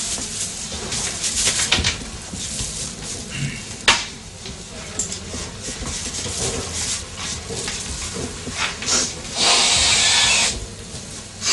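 A card scraping and tapping white powder on foil, with a sharp tap about four seconds in, then a hard sniff lasting about a second near the end.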